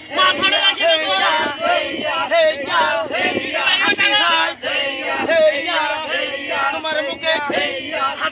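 Several men's voices chanting together in a fishermen's work chant as they haul the net.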